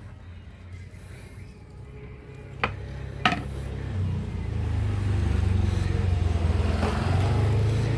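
Bamboo fire saw being worked fast, a rapid low rumbling rub of bamboo on bamboo that grows louder about halfway through. Two sharp clicks come shortly before.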